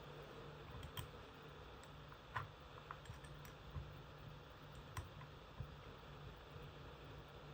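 A few faint, sharp clicks and taps of small hard parts being handled during an iPad screen replacement, spaced irregularly over a low steady hum.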